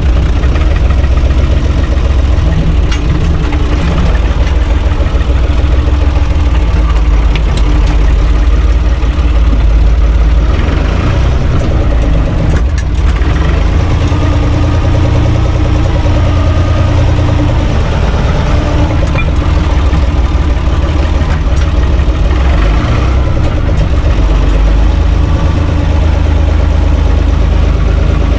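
UTB 445 tractor's diesel engine running steadily while driving, heard from inside the cab, its note shifting with the throttle about ten seconds in and again a little after twenty seconds.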